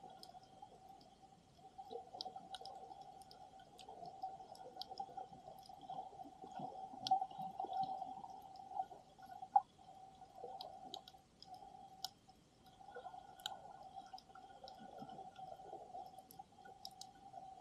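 Faint underwater ambience picked up by a submerged camera: a steady tone runs throughout, under scattered sharp clicks and crackles, a few of them louder.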